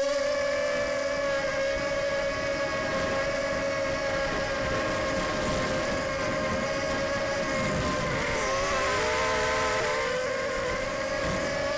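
Racing mini quad's brushless motors (DYS 1806 2300KV on 3S, 5030 props) whining at a steady high pitch, heard through the onboard camera. The pitch dips and wavers briefly about eight to ten seconds in as the throttle changes, then steadies again.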